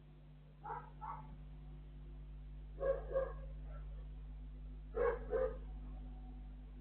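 A dog barking in three pairs of short barks about two seconds apart, the second and third pairs the loudest, over a steady low hum.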